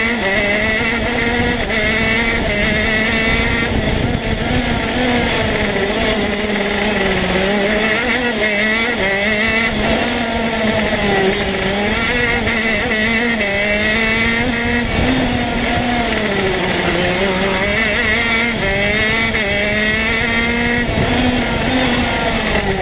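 Two-stroke TM kart engine heard on board at race speed, its note dropping several times as the kart slows for the bends and climbing again as it accelerates out of them.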